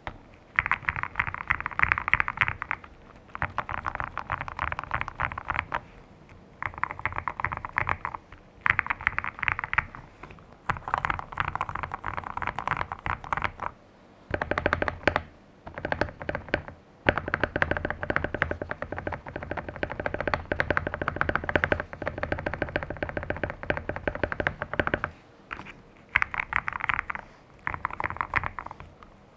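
Fast typing on a GMK67 mechanical keyboard fitted with Akko Jelly Black linear switches, tape-modded, with Durock v2 stabilizers. The keystrokes come in quick bursts of one to three seconds with short pauses between.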